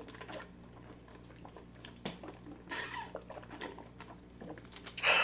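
Close-miked chewing and wet mouth smacks while eating a fried-food meal, a run of small irregular clicks and crunches, with a louder smack near the end.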